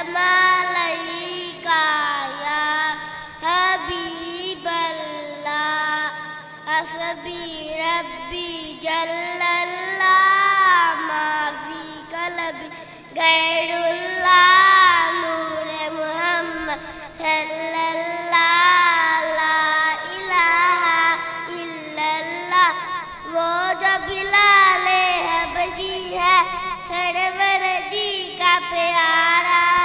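A young boy sings a devotional naat solo, his high voice gliding through long ornamented melodic phrases, amplified through a microphone and PA system. A faint steady hum runs underneath.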